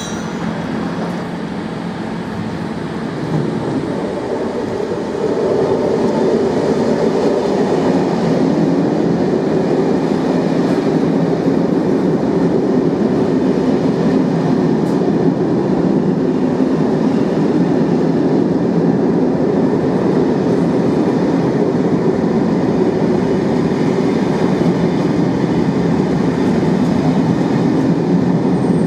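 A train running through the station, a loud steady rumble of wheels on rails that swells about four to five seconds in and then holds steady.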